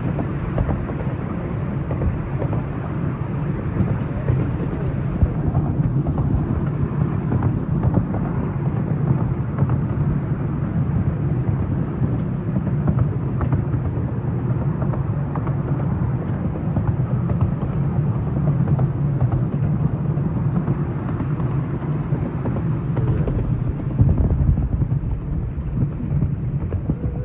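Train running, heard from inside a passenger carriage: a steady low rumble of wheels on the track, with scattered faint clicks.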